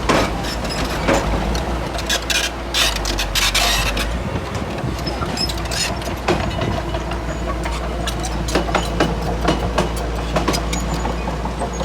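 Komatsu D31P bulldozer's diesel engine running with a steady low drone while it pushes soil, over repeated sharp clanks and rattles, with a rushing scrape from about two to four seconds in.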